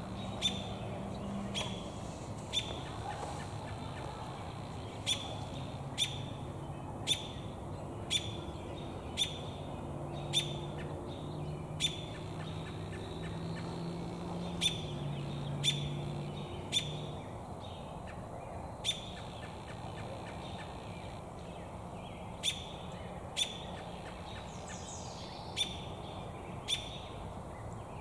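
American robin giving short, sharp chirp call notes, one at a time about once a second, with a few longer pauses.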